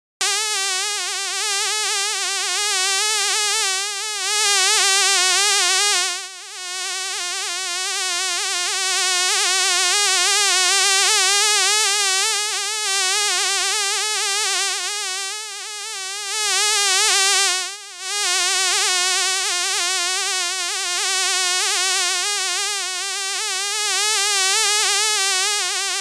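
Fly buzzing sound effect: a continuous wing buzz whose pitch wavers up and down, briefly fading twice, about six seconds in and again near eighteen seconds.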